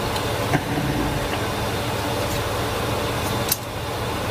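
Steady fan-like background hum and hiss, with a couple of faint clicks.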